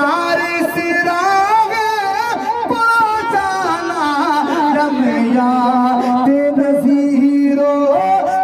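A man singing an Urdu devotional kalam (naat) in long held notes with ornamented, gliding pitch turns, settling into a long low held note about two-thirds of the way through.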